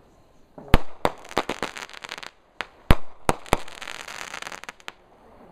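Fireworks going off: about five sharp bangs, with stretches of fast crackling after them. The loudest bangs come just under a second in and just under three seconds in, and the crackling dies away shortly before the end.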